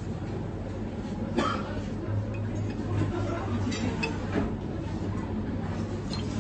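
A few light clinks of a glass syrup bottle and a metal jigger as syrup is measured out and poured into a mixing glass. Underneath are a steady low hum and faint background voices.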